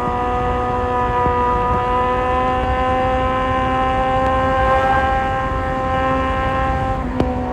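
Kawasaki Z1000 motorcycle's inline-four engine pulling steadily in gear, its pitch rising slowly, over a low rush of wind noise. Near the end there is a sharp click and the engine note drops.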